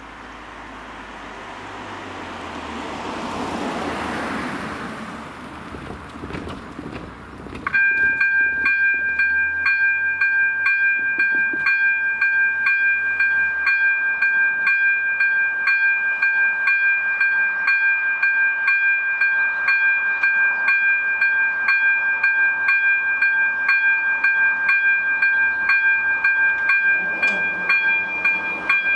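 A rush of noise swells and fades, then about 8 s in the AŽD 97 level crossing's electronic warning bell starts suddenly, sounding a steady, evenly repeating ring that signals a train is coming and the barriers are about to drop.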